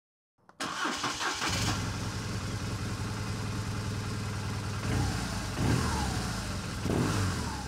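Motorcycle engine starting with a sudden catch about half a second in, then running steadily and revved three times near the end, the pitch falling back after each blip.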